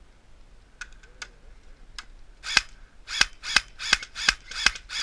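Airsoft gun firing a string of single shots, about three a second, starting about two and a half seconds in, each a sharp pop. A few faint clicks come before it.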